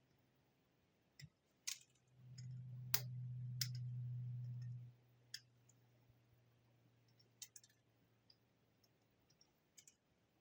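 Faint, scattered small clicks and taps of a soldering pen and small components being handled on a circuit board during hand soldering. A low steady hum comes in about two seconds in and stops near the halfway point.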